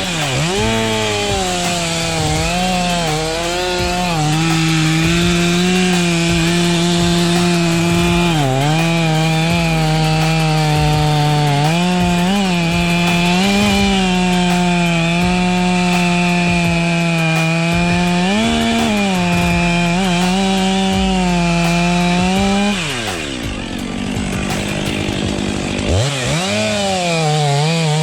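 Stihl MS 261 C-M two-stroke chainsaw running at high revs while cutting wood, its pitch dipping briefly several times as the chain bogs under load. About 23 seconds in the revs fall away sharply, then the saw revs back up near the end.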